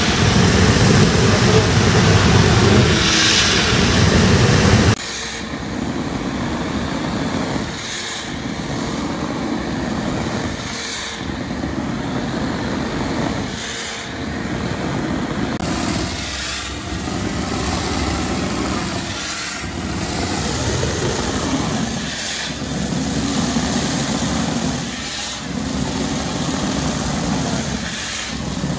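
Concrete spraying rig shooting concrete onto a pool's rebar shell: a steady rushing machine-and-spray noise. It is louder for the first five seconds, then swells and dips in a regular pulse about every three seconds.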